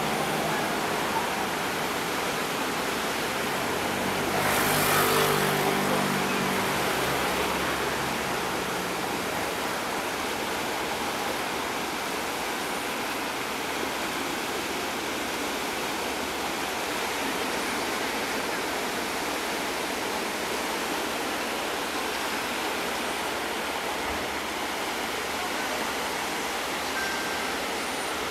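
Steady rushing of sea surf breaking and washing on a rocky shore. About five seconds in, a louder rush with a low hum swells up for a couple of seconds, then fades back into the surf.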